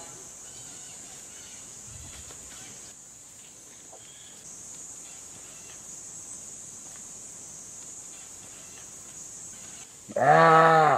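A wounded deer gives one loud, bleating distress call about a second long near the end, its pitch rising then falling. Before it there is only a faint steady high hiss.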